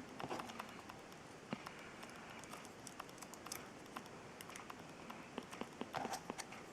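Faint, scattered clicks and taps of plastic model kit parts being handled and fitted, with a quick cluster of clicks near the end.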